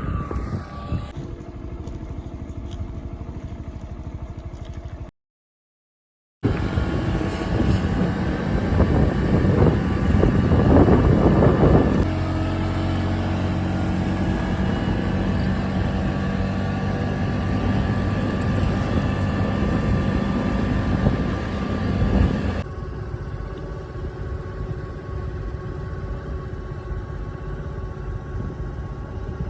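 A motor vehicle's engine running steadily, heard in several edited pieces with a short silent break about five seconds in.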